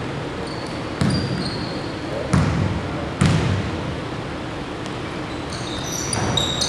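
Basketball bouncing on a hardwood gym floor: three thumps about a second apart. Near the end, sneakers squeak on the hardwood as players scramble under the basket.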